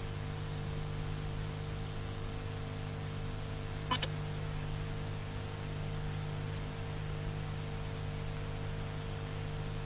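Steady electrical hum and hiss of an open range-control communication feed between callouts, with a brief click about four seconds in.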